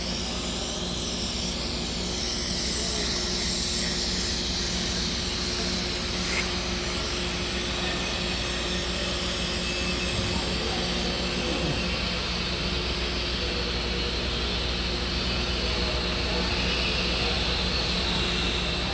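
Electric arc welding: a steady hiss over a constant low hum, running unbroken for nearly twenty seconds.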